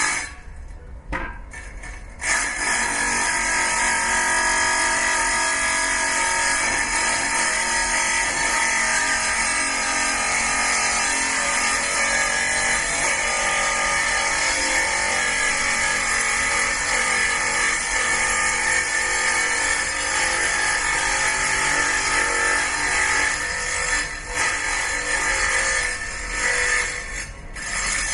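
Power tool working metal: a steady, harsh high whine that starts about two seconds in after a few short bursts, dips briefly a couple of times near the end, then stops.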